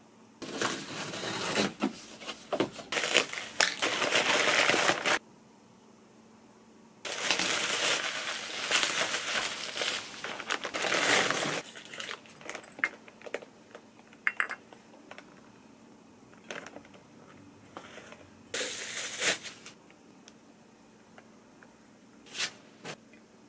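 Packaging being unwrapped: plastic bubble wrap and newspaper crinkling and rustling in three long bursts, with scattered light clicks and taps from ceramic and glass dishware being handled between them.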